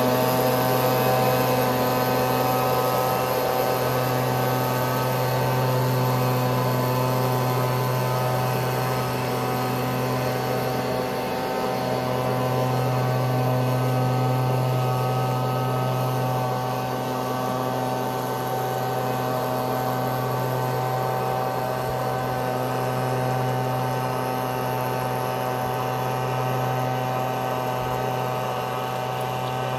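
Gas-powered leaf blower engine running steadily, a constant drone that slowly grows quieter as the distance to it increases.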